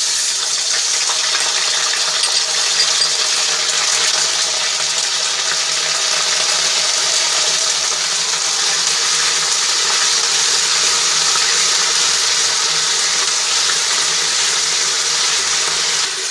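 Garlic and ginger paste sizzling steadily as it fries in hot ghee.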